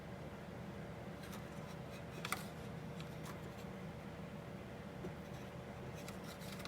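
A few light clicks and taps from small parts being handled, the clearest about two seconds in and more near the end, over a steady low hum.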